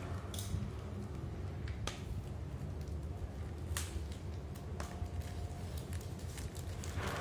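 A few light separate clicks and a brief rustle from a plastic TV remote and its silicone cover being handled and set down on a tile floor, over a steady low hum.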